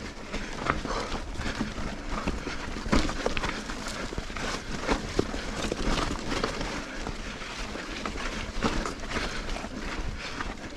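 Sonder Evol mountain bike climbing a steep dirt trail: a steady rough noise of tyres on loose ground, with frequent knocks and rattles from the bike.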